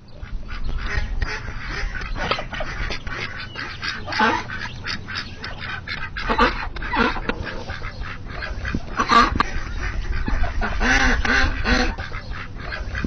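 Duck quacking over and over at irregular intervals, over a steady low background hum.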